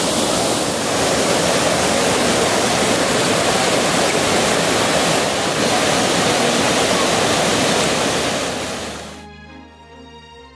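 The Trevi Fountain's cascading water rushing and splashing steadily. The sound fades out about nine seconds in as soft music with long held notes comes in.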